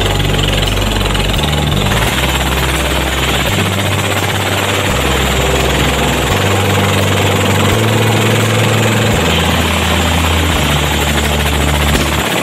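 Belt-driven ice crusher running on a fishing-port quay, a loud and steady mechanical din.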